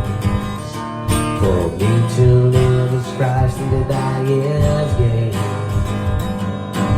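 Acoustic guitar strumming chords over bass and sustained pitched notes, an instrumental passage of the song with no singing.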